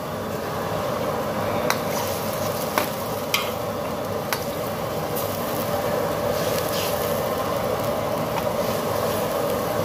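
Steady sizzling hiss from a wok of browned pork bones and water heating over a gas flame, with a few sharp metal clicks in the first half. Near the end, water is poured from a metal ladle into the wok.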